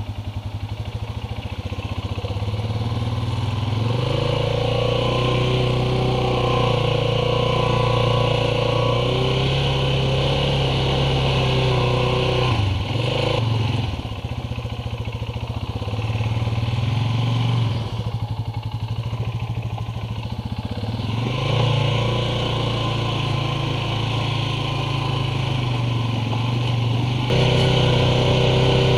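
ATV engine running while riding, its pitch dipping and climbing again twice as it slows and picks back up.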